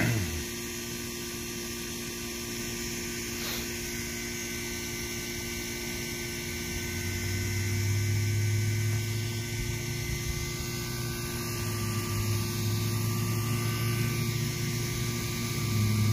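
Steady mechanical or electrical hum with several fixed tones; a deeper low rumble comes in about halfway through and stays.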